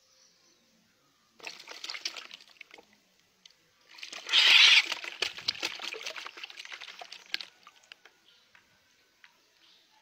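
Black-naped oriole thrashing its wings in shallow water in a plastic bucket, splashing in two bouts about a second and a half and three and a half seconds long, the second louder.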